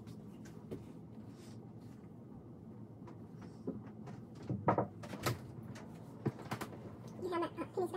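Household tidying sounds: scattered knocks, clicks and bumps of cupboard doors and objects being handled and put down, with a few sharper knocks about halfway through.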